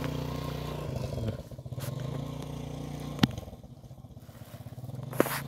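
Small motorcycle engine of a saleng (motorcycle with sidecar cart) running as it rides off, growing fainter after about three seconds. Two sharp clicks come about three and five seconds in.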